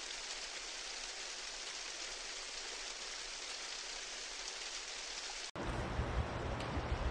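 A steady, rain-like hiss cuts off suddenly about five and a half seconds in. It gives way to uneven low buffeting of wind on a camera microphone, with the water of the river faint beneath.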